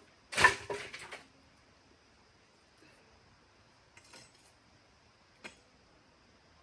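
A short clatter of hard objects knocking together, like utensils or pots, then a few faint knocks and one sharp click.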